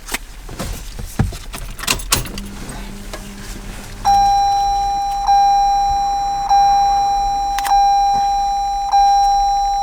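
Car's electronic warning chime repeating, one ding about every 1.2 seconds, five in a row, each ringing on into the next. A few light clicks come before it.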